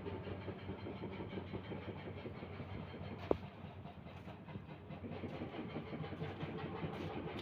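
A machine's engine running steadily, with one sharp knock about three seconds in.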